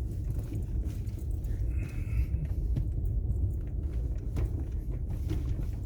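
Car driving slowly over a rough, bumpy dirt road: a steady low rumble with scattered small knocks and rattles.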